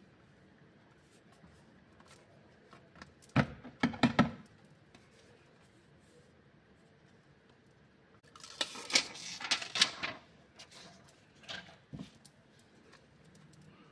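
Handling noises of a smartphone and its packaging: a quick cluster of knocks and clicks about three and a half seconds in, a second or two of scraping and rustling around nine seconds in, and a few light clicks near the end.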